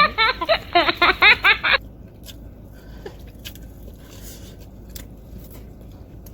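A voice laughing in short quick bursts for about two seconds, then stopping. Afterwards a low steady car-cabin hum with a few faint clicks.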